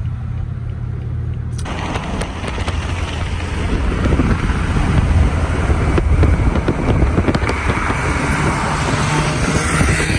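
Car driving alongside at speed, heard with loud wind and road noise, growing louder as it comes past. Before that, a steady low engine drone inside the cabin, cut off suddenly less than two seconds in.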